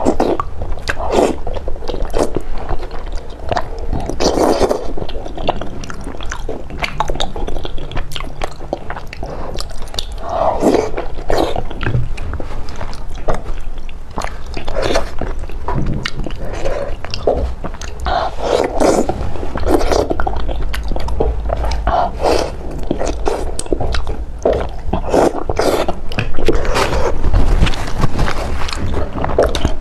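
Close-miked eating: wet chewing, biting and slurping of a saucy dish of wide strips, with irregular smacking clicks throughout.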